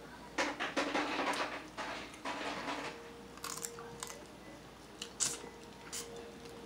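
Close-up eating noises: crackly rustling for about two and a half seconds as shrimp shells are peeled off and food is chewed, then a few sharp clicks.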